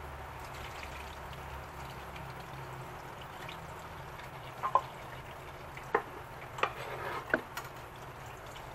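Steady hiss of water running from a tap, with a few light knocks and clicks in the second half.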